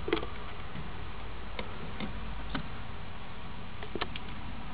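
Panther chameleon chewing a silkworm: irregular sharp clicks of its jaws crunching the worm, about seven in all, the loudest right at the start, over a steady low hum.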